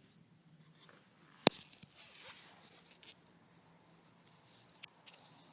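Flat screwdriver working under the bottom of an old walk-in cooler door to lift it and free its spring-loaded lock: one sharp metal strike about one and a half seconds in, then lighter clicks and scraping, with another click near the end.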